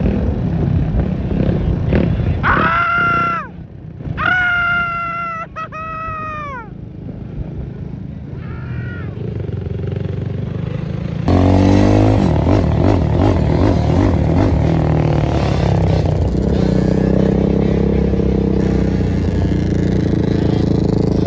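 Sport quad (ATV) engines revving. In the first half come long held revs that drop away as the throttle is let off. About 11 seconds in, a cut brings a louder, steadier engine running under load, with wind on the microphone.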